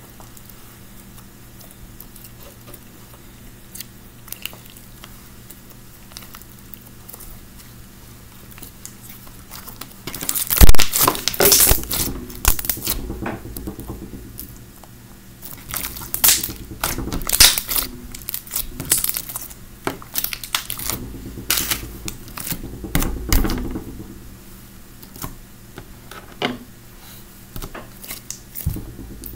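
Slightly sticky clear slime packed with jelly cubes, beads and charms being squished and stretched by hand, giving crackling, clicking, sticky sounds. It is faint at first, then comes in loud bursts from about a third of the way in.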